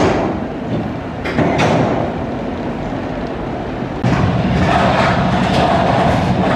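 Mine train roller coaster rolling along its steel track. From about four seconds in it comes louder as the train approaches the station, a steady rumble and hum with rhythmic clacks roughly twice a second.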